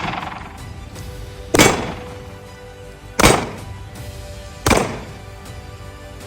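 Glock 45 9mm pistol firing three shots about a second and a half apart, each with a short echoing tail, over background music.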